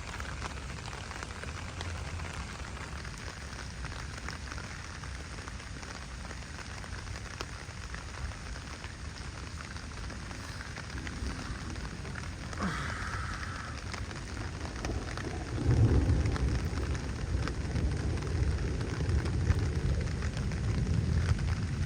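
Steady heavy rain falling. About two-thirds of the way in, a low rumble of thunder swells up and keeps rolling to the end.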